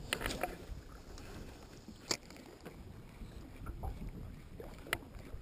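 Faint wind and water rumble around a small fishing boat, with a few sharp knocks. The clearest knock comes about two seconds in and another near the end.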